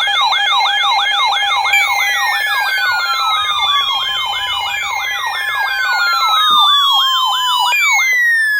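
Electronic siren sound: a fast repeating rising yelp about three times a second over a steady tone, with long falling wails layered in starting about two, five and eight seconds in. The yelp cuts off just after eight seconds.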